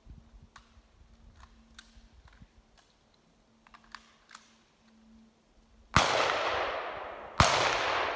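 Two gunshots about a second and a half apart near the end, each followed by a long echo that fades away.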